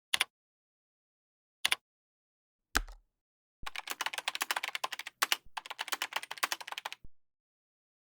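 Typing: three single key clicks spaced about a second apart, then two quick runs of rapid key clicking with one louder click between them.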